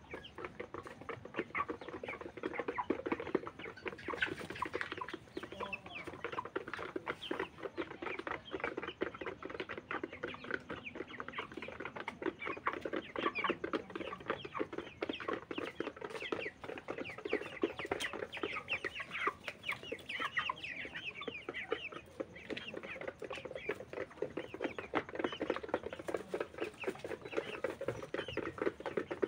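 A flock of broiler chickens clucking and chirping without pause, over a dense patter of quick clicks as they peck at feed and water.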